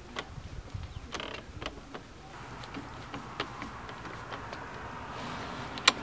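Hand screwdriver driving screws into the edge of a motorhome's metal entry door to fix a new lock and handle, giving a run of small ticks and clicks. A single sharp click, the loudest sound, comes near the end.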